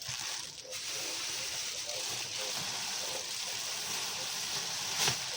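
Steady rush of running water, with a sharp knock near the end.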